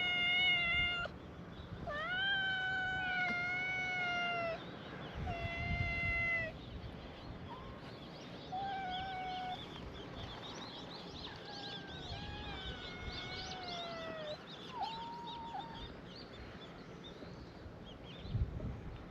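Several stray cats meowing one after another, long drawn-out meows at first, then shorter, fainter ones, sometimes overlapping. A brief low bump near the end.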